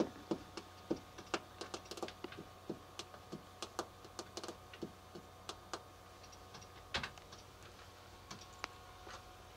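Irregular clicking and tapping on a computer keyboard, a few clicks a second with a louder one about seven seconds in, over a faint steady hum.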